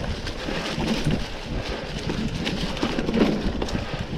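Mountain bike rolling over rough dirt trail: tyre noise with irregular knocks and rattles as the bike goes over bumps.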